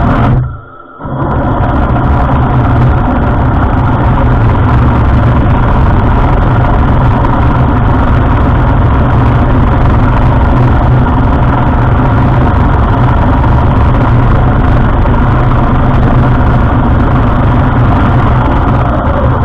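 Heng Long Tiger II v6 radio-controlled tank driving on pavement: its metal tracks rattle and its drive motors run, loud and steady after a brief dip near the start.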